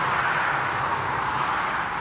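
Jet airliner engine noise, a steady loud rushing sound.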